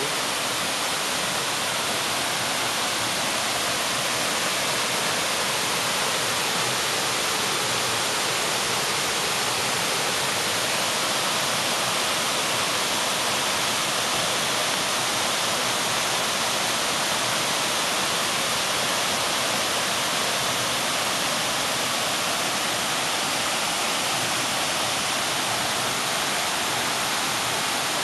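Waterfall cascading over rock: a steady, unbroken rush of falling water.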